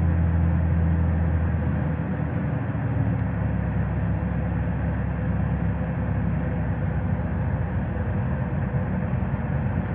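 Car driving through snow at night, a steady drone of engine and road noise with a low hum that eases off after about two and a half seconds.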